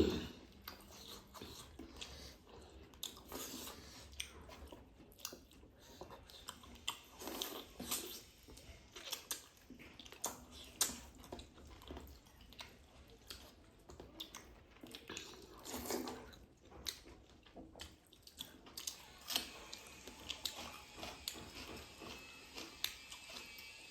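Close-up chewing and eating sounds: quiet, irregular mouth smacks and clicks as a person chews a meal.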